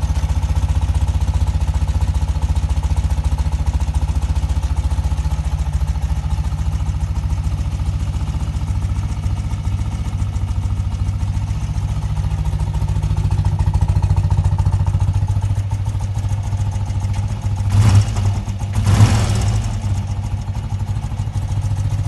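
1992 BMW R80GS's air-cooled flat-twin boxer engine idling steadily, then blipped twice briefly near the end.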